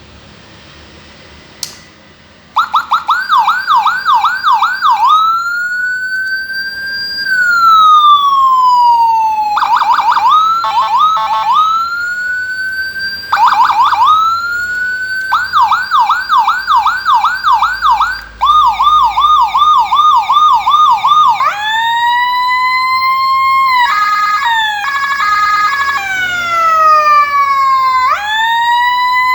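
A click, then a Whelen 60-watt electronic siren cycling through its tones: fast yelping sweeps, slow wails rising and falling, rapid warbles, and a stepping high-low two-tone.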